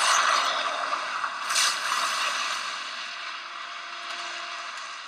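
The aftermath of the shark exploding, from the film soundtrack: a rushing spray of water and debris splashing back into the sea. It swells once about a second and a half in, then slowly dies away.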